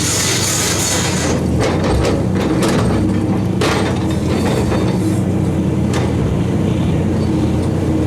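Heavy diesel excavator engine running steadily under load, with rough scraping and rattling of river gravel and stones that comes and goes, loudest from about one and a half to three and a half seconds in and again briefly near six seconds.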